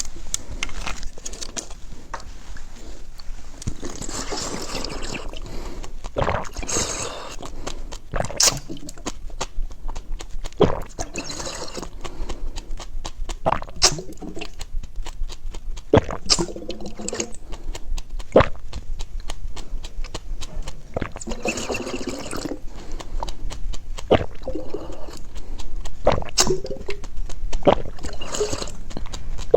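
Close-up eating sounds: wet chewing and slurping, with many sharp mouth clicks and smacks throughout and several longer slurps.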